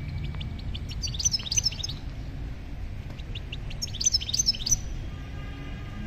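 A small songbird singing: two short bursts of quick, high chirps, about a second in and again around four seconds, over a low steady rumble.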